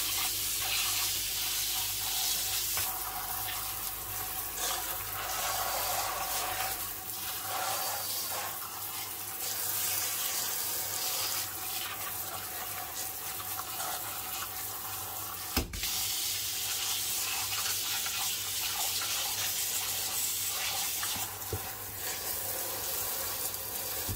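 Cold water running from a kitchen tap onto hot boiled potatoes in a stainless-steel colander in the sink, splashing steadily as they are cooled. The stream is a single jet at first and later the spray of the pull-down faucet head. There is one sharp knock about two-thirds of the way through.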